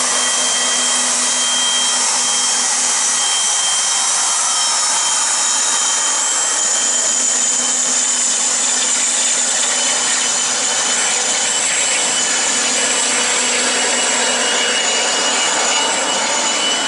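Dornier 328JET's two Pratt & Whitney Canada PW306B turbofans at taxi power: a steady high-pitched whine with several held tones over a broad rush of engine noise, as the airliner taxis past and away.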